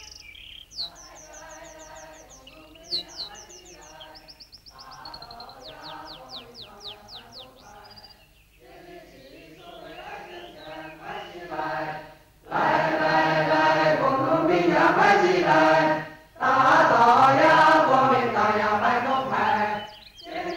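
A chorus of voices singing in an old film soundtrack. The singing is faint at first, with birds chirping quickly over it in the first few seconds, then comes in loud about twelve seconds in, with a brief break about four seconds later.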